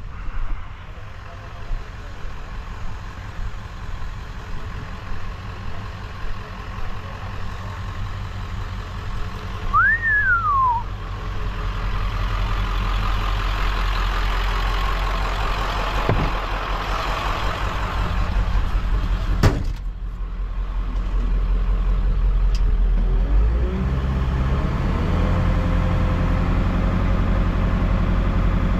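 Diesel engine idling steadily, with a single sharp knock about two-thirds of the way through. Near the end it becomes louder and deeper: the 1995 Ford 7.3 L diesel idling, heard from inside its cab.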